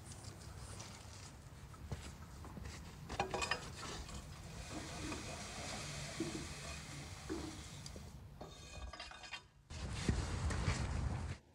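Wood fire crackling in a brick dome oven, with a long-handled tool scraping and knocking among the burning wood and embers in the oven mouth.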